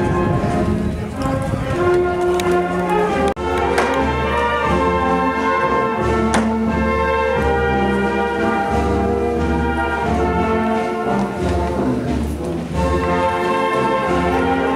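Brass band music playing, with held chords of trumpets and trombones.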